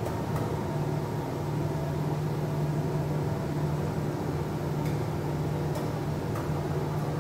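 Steady mechanical hum of a large robot-arm 3D printer at work, extruding a big print, with a few faint ticks in the second half.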